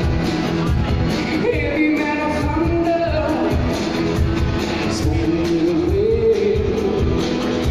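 Live band playing pop-rock music with a singer's melody over a steady beat.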